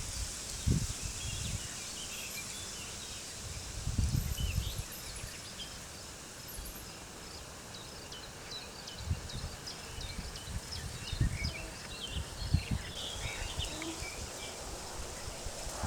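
Small birds chirping in many short calls, busier in the second half, over a steady high hiss. Wind gusts rumble on the microphone about four seconds in and again near the middle.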